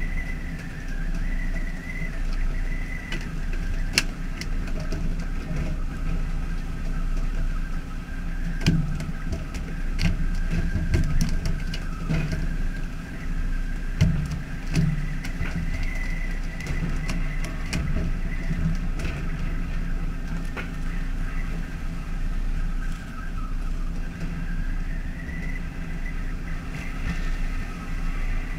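Fishing boat's engine running steadily, with sharp knocks now and then as skipjack tuna are jerked out of the water on poles and land on the deck.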